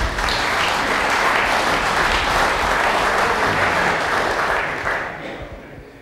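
Audience applauding; the applause fades out about five seconds in.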